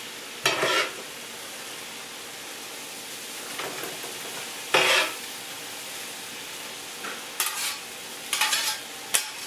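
Food sizzling in a hot pan with a steady hiss, and a spatula scraping and stirring through it in five short, loud strokes, three of them in quick succession near the end.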